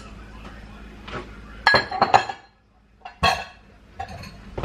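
Kitchenware clinking: two sharp clinks about two seconds in and another a little over three seconds in, over a faint steady background.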